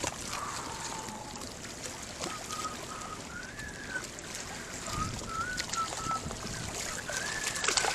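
Steady water and wind noise with fine clicking, and a faint wavering high tone that comes and goes several times.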